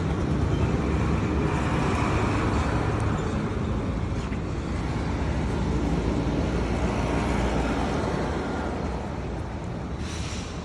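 Steady road-vehicle noise, heaviest in the low end, with a brief hiss about ten seconds in.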